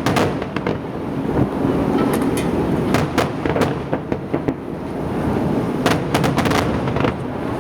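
Fireworks finale: a continuous low rumble of overlapping booms, with clusters of sharp cracks and bangs at the start, about three seconds in and again about six seconds in.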